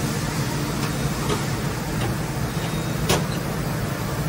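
Mori Seiki NT1000SZM mill-turn centre running, a steady machine hum and coolant spray hiss, with a few sharp clicks, the loudest about three seconds in.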